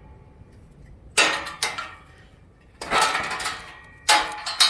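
Metal tools or parts clanking against metal, about five sharp knocks with a brief metallic ring after each.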